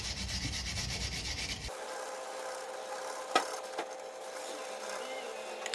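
Wire brush scrubbing rust and debris off a steel wheel hub's mounting face in quick back-and-forth strokes, cleaning it so a new brake disc sits flat. After about two seconds the scrubbing turns quieter, and a sharp knock sounds about halfway through.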